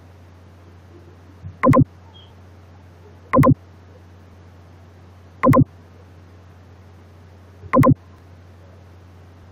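Four loud, short mouse clicks about two seconds apart, over a steady low hum.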